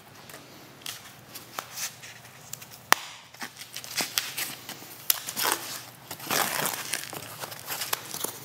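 Foam shipping wrap being torn and pulled back from motorcycle handlebars, crinkling and ripping irregularly, with one sharp click about three seconds in.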